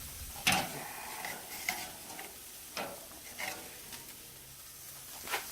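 Ribeye steaks sizzling as they sear over hot charcoal, a steady hiss broken by a few sharp clicks.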